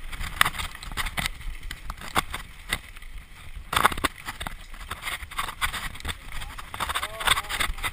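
Mountain bike rattling and clattering over a rough trail, with frequent irregular knocks from the frame and components and wind rumble on the helmet camera. A brief wavering squeak comes about seven seconds in.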